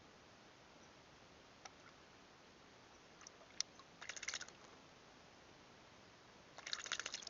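A bird bathing in a water trough, splashing in two short bursts of rapid wing-flicking about four seconds in and near the end, with a few faint single clicks before.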